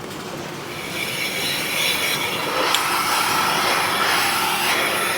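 Milking parlour machinery running: a steady hiss with a faint whine over it, growing louder about a second in, with a few light knocks.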